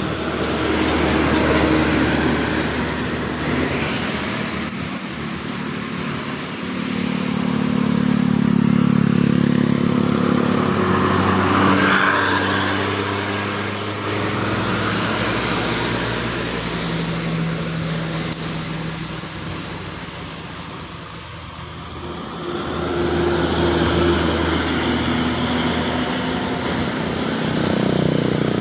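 Road traffic on a steep uphill: bus and other vehicle engines pulling under load, passing one after another. Their engine pitch shifts and the sound swells and fades several times.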